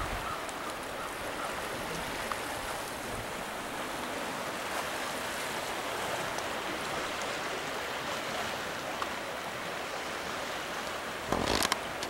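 Steady rush of small waves washing over rocks along the shore. Near the end, a gust of wind buffets the microphone with a low rumble.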